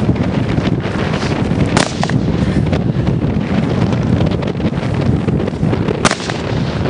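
Wind buffeting the microphone, with two sharp bangs about four seconds apart, the first about two seconds in.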